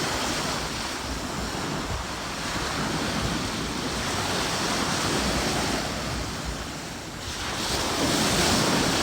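Ocean surf washing onto the beach in swells, one louder wave coming in near the end, with wind buffeting the microphone.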